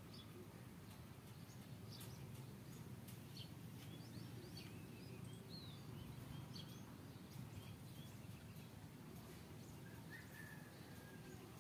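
Faint outdoor ambience: a low steady rumble with scattered short bird chirps, and one longer bird note near the end.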